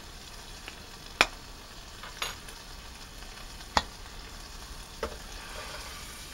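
Diced bacon sizzling steadily in a pot on a gas stove, with four sharp clicks as a metal spork is levered against the stuck lid of a glass jar of broad beans to break its seal before the lid is twisted off.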